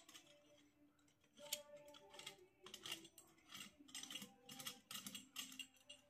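Light, irregular clicks and metallic taps of chrome flush-valve parts being handled and fitted together by gloved hands, the tailpiece tube knocking against the valve body.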